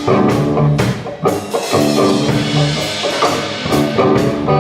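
Live song accompaniment in a short instrumental gap between vocal lines: guitar chords ringing over a steady percussive beat of about two strikes a second.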